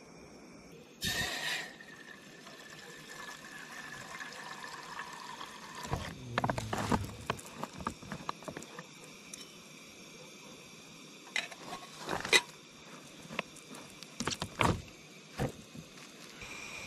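Water poured from a collapsible plastic water bag into a metal camping kettle, a tone falling in pitch as the water runs in for about five seconds. Then comes a clatter and a few sharp clicks as the bag is capped and set down.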